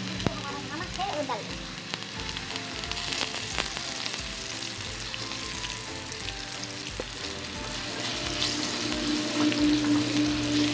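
Potato slices sizzling as they shallow-fry in hot oil in a non-stick pan, a steady crackle. Near the end a wooden spatula stirs them and the sizzle grows a little louder.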